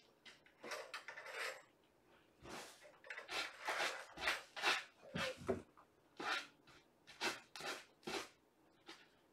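Kittens playing and moving about: a run of short, irregular scratching, rustling and knocking noises, thickest in the middle.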